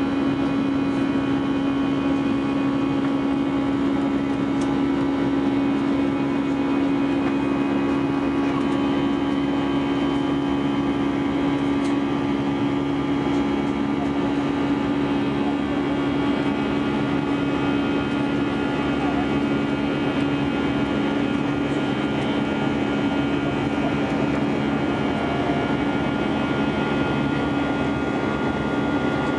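Steady drone of an airliner's jet engines heard from inside the cabin during the climb after takeoff: a strong low hum with several steady higher tones above it, unchanging throughout.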